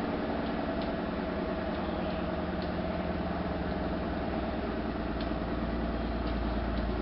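Electric onion slicing machine running with a steady motor hum, a few faint ticks scattered through it.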